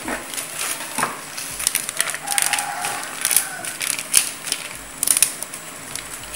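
Pot of rice porridge with mushrooms at a rolling boil, its bubbles popping in quick, irregular crackles.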